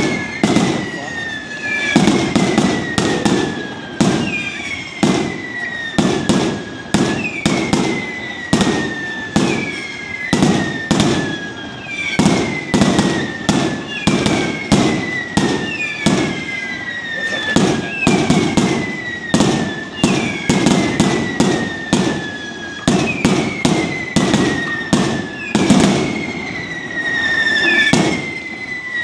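Fireworks barrage: a fast, irregular string of sharp bangs and crackles, with a whistle falling in pitch about every two seconds.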